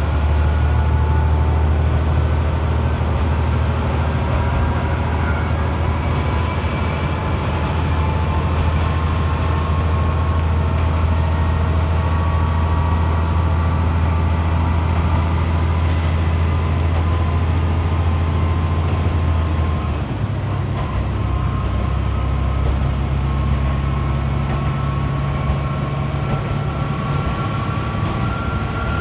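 KiHa 2400 series diesel railcar under way, heard from inside the cabin: a steady low engine drone with a faint whine above it that slowly rises in pitch. About twenty seconds in the engine note drops and changes.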